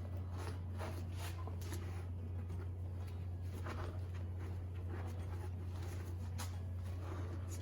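Irregular short scraping and rubbing sounds of hand cleaning work on a differential housing, over a steady low hum.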